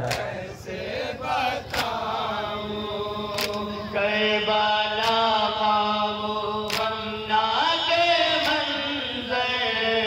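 Men chanting a nauha, an Urdu lament, through a PA microphone in long held melodic lines. Sharp slaps of matam, hands beating on chests, land about every second and a half.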